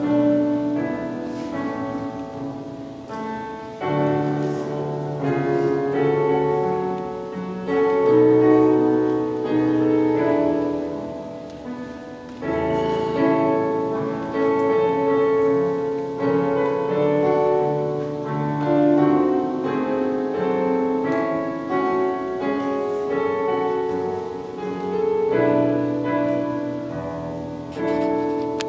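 Piano music, slow held chords that change every second or two.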